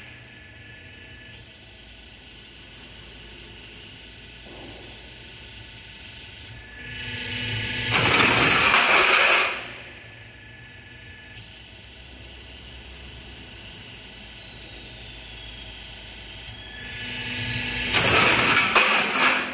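Double-deck steel roofing sheet roll forming machine running with a steady low hum as corrugated trapezoid sheet feeds through the rollers. Twice, about ten seconds apart, a loud noisy stretch builds over a couple of seconds and then stops suddenly.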